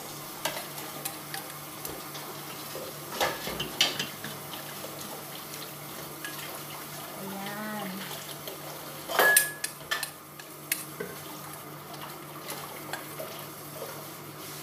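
Cookware knocking and clinking against a stainless steel pot as liquid is tipped in from a pan and the pork is stirred with a wooden spoon. A handful of separate clanks, the loudest about nine seconds in with a short metallic ring, over a steady low hum.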